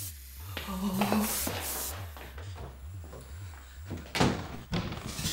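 A low throbbing pulse, about two and a half beats a second, runs under the scene like a heartbeat in a suspense score. Around four seconds in, two sharp knocks come from a glass-paned door being handled.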